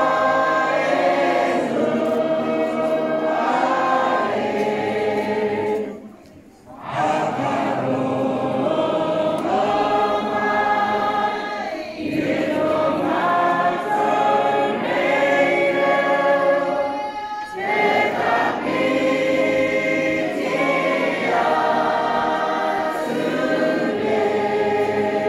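A large group of voices singing together, a slow song in long held notes phrase by phrase, with a short break for breath about six seconds in.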